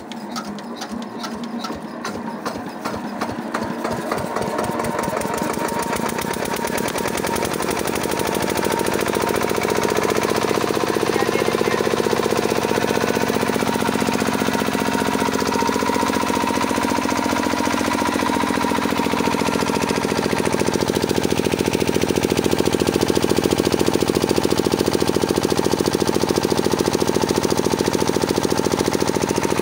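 Kirloskar diesel generator engine on a cold start: an even knocking beat that quickens and grows louder over the first several seconds as the engine picks up speed, then settles into a steady run.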